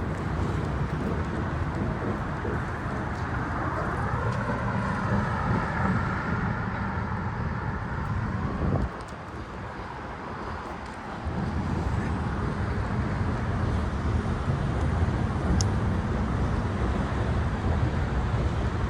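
Steady low outdoor rumble of road traffic. It drops away for about two seconds near the middle, then comes back.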